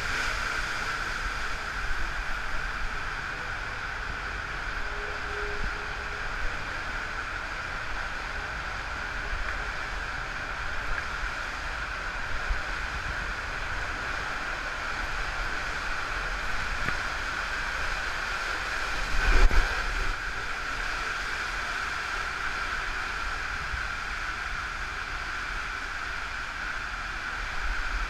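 Steady rush of water pouring along a water-coaster tube under the rider's raft, with one loud thump about two-thirds of the way through.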